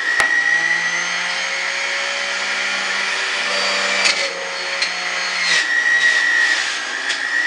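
Electric juicer's motor running with a steady high whine while vegetables are pressed down its feed chute. A few brief knocks sound over it.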